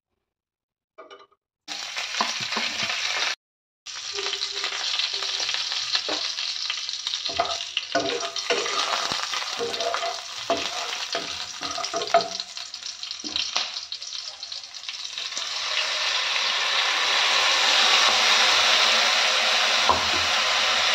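Hot oil sizzling in a nonstick kadai as whole spices and dried red chillies fry for the tempering, with the spatula scraping and tapping against the pan. The sizzle starts abruptly about two seconds in, and about three quarters of the way through it grows louder and fuller as the dal goes into the hot oil.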